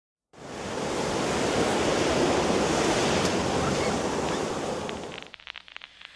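Steady wash of breaking ocean surf that fades away about five seconds in.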